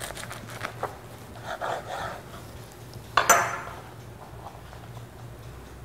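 A knife cutting through a fried-fish sandwich in a seeded bun on a cutting board: a few crunches and taps, then one loud sharp knock a little over three seconds in.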